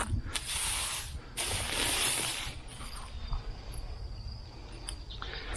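Dry hay mulch and potato plants rustling as they are pulled up and shaken: two long rustles in the first half, then softer scattered rustling.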